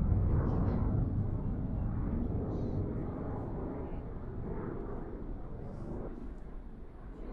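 Distant jet aircraft rumbling past, heard from about 2 km away: a deep rumble that fades steadily as the jet moves away.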